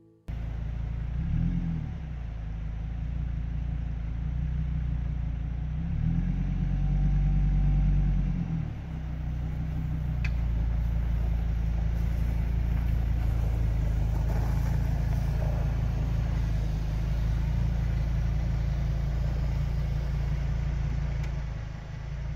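Motor vehicle engine running while driving, a steady deep rumble. Its note rises and falls with revs about a second in and again between about six and eight seconds. There is a single sharp click about ten seconds in.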